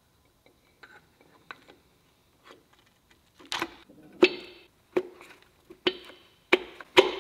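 A short run of sharp metal knocks and clinks, about one every two-thirds of a second in the second half, from a piston and rod assembly being pushed down through a tapered ring compressor into a cylinder bore of a Mitsubishi 4B11 aluminium block and the compressor being handled. Before that there are only a few faint clicks.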